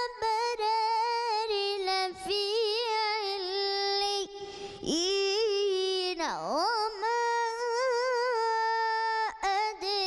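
A boy's high voice reciting the Quran in the melodic mujawwad style, drawing out long held notes with wavering ornamental turns. He takes a brief breath about four seconds in, and a couple of seconds later the voice swoops sharply down in pitch and back up.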